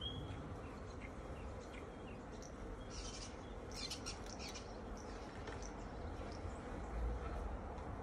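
Small birds chirping, with a burst of quick high chirps about three to four seconds in, over a faint steady hum of honeybees flying about the open hive.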